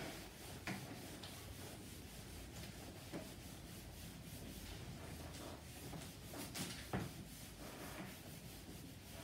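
Handheld eraser rubbing across a whiteboard, wiping off marker writing. The rubbing is faint, with a few soft knocks scattered through it.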